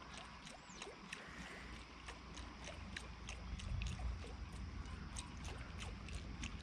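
Baitcasting reel and rod being worked to retrieve a walk-the-dog topwater lure, with rapid irregular clicks several times a second, under a low rumble that is loudest about four seconds in.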